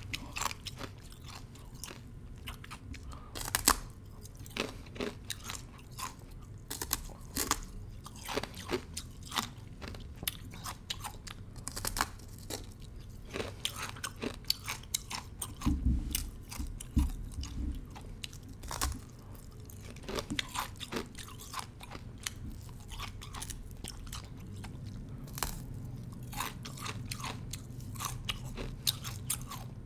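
A thin slab of ice being bitten and chewed close to the microphone: irregular, sharp crunches and crackles of breaking ice, with a denser, louder run of crunching about halfway through.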